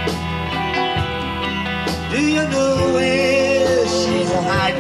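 A live band plays an instrumental passage between sung lines of a slow song, with electric guitar. About two seconds in, a held melody line with a wavering pitch comes in over the band.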